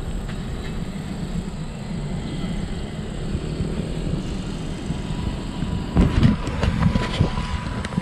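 Steady low rumble of a bicycle ride: wind on the microphone and tyres rolling over paving. A cluster of knocks and rattles comes about six to seven seconds in.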